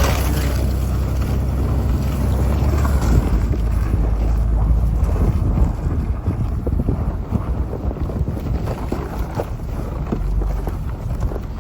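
A vehicle's engine running as it drives through a shallow patch of water, the tyres splashing through it. A steady low engine drone sits under the irregular splashing and churning, which turns choppier about halfway through.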